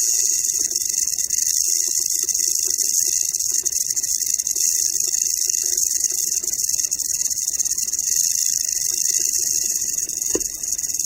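Rattlesnake shaking its tail rattle: a continuous, steady, high-pitched buzz, the snake's defensive warning. It dips briefly near the end with a single click.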